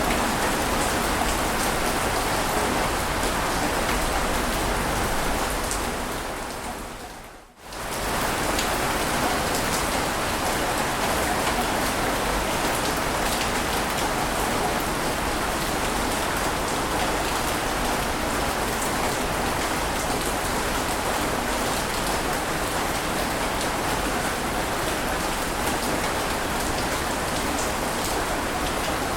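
Steady, even hiss of rushing water, with no separate wave surges. About six seconds in it fades out to a brief near-silence and returns sharply a second later, like a loop being joined.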